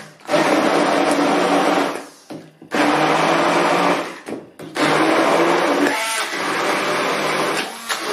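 Hand-held immersion blender pureeing cooked quince for jam in a pot. It runs in three bursts with brief pauses between them, the last and longest starting a little under five seconds in.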